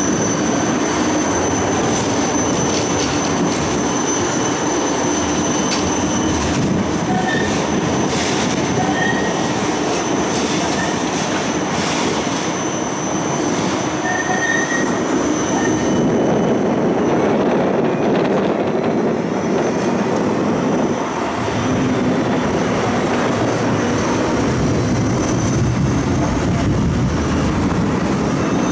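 Inside a Siemens Combino low-floor tram running along a city street: a steady rumble of wheels on rail, with a thin high whine that fades out a little past halfway.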